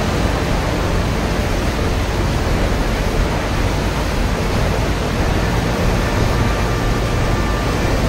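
Loud, steady roar of rushing water from a waterfall or fast river.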